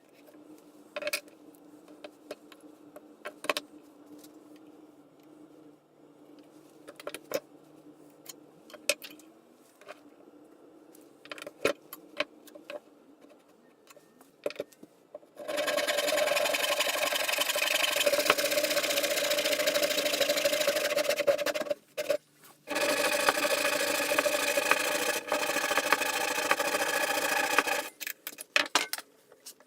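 Scattered clicks and knocks of tools and parts being handled, then a power tool's motor running steadily for about six seconds, stopping briefly, and running again for about five seconds.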